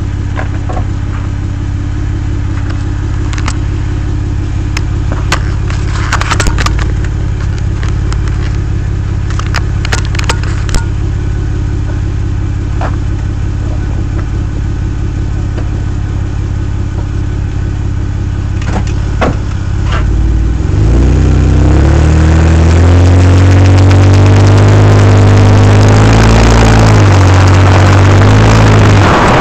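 Vehicle's engine and driveline running, heard from underneath: a steady low hum with a scattered series of sharp clicks, the driveline click being chased. About twenty seconds in the engine is revved, rising in pitch and getting louder, holds, then eases back near the end.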